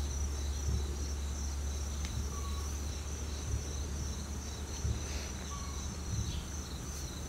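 Insects trilling steadily: one high, unbroken note with a second, pulsing trill just below it, over a steady low rumble.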